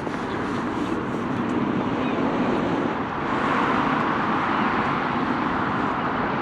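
Steady rush of road traffic, cars' tyres on the road, swelling louder about three seconds in.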